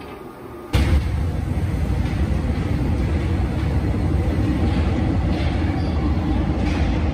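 Paris Métro train running through an underground station: a steady, loud, low rumble that starts suddenly less than a second in.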